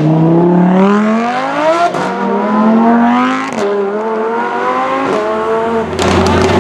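A car engine accelerating hard through the gears. The pitch climbs, then drops sharply at each upshift, three times about every one and a half to two seconds. A rush of noise comes in near the end.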